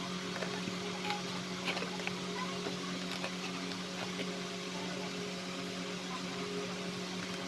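Utility knife blade scoring through cardboard, heard as scattered short scratchy clicks, over a steady low electrical hum.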